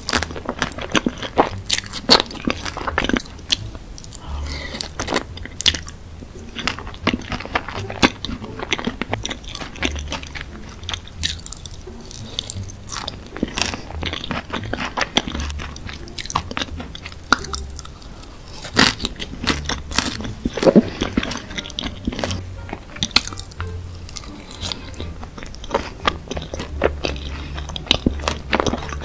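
Close-miked eating of sauce-covered fries: bites and steady chewing, full of irregular sharp mouth clicks.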